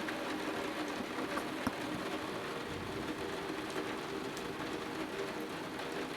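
Heavy rain falling steadily during a thunderstorm, a constant hiss with a few faint ticks of drops, over a steady low hum.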